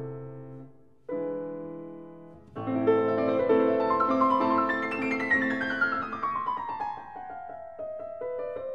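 Background piano music: a chord fading out, another chord struck about a second in, then a long run of notes stepping downward in pitch.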